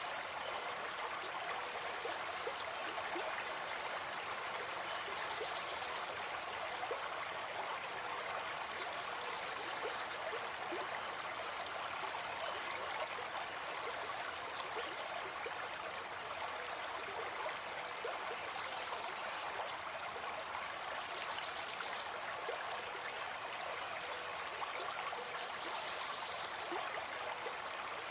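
Stream water running steadily, an even, unbroken rush of flowing water.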